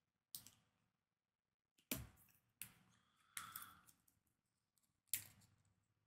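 Fingernails picking at and peeling seal stickers off a cardboard product box: about five quiet, short scratchy ticks and peels, spread out, with near silence between them.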